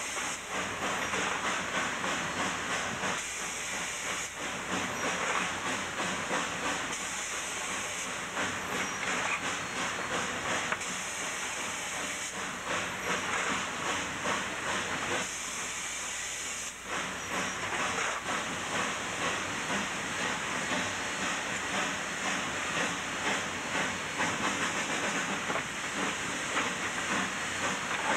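K-36 narrow-gauge 2-8-2 steam locomotive working hard upgrade under heavy tonnage, heard from inside its cab: a steady steam hiss with the exhaust pulsing in a regular beat.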